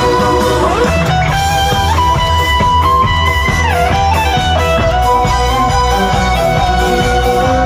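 Instrumental break of a pop song: an electric guitar plays a lead melody of long held notes with a few slides up and down, over a steady bass and beat, with no singing.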